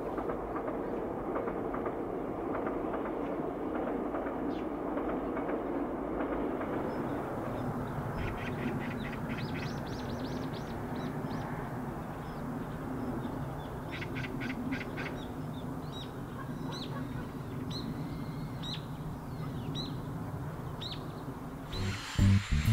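Small birds chirping over a steady low rumble. From about eight seconds in there are short high chirps about once a second, with two bursts of rapid trilling.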